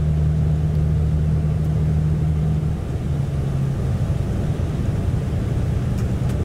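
Highway coach cruising on an expressway, heard from inside the cabin: a steady low engine drone over road noise, its pitch shifting slightly about three seconds in.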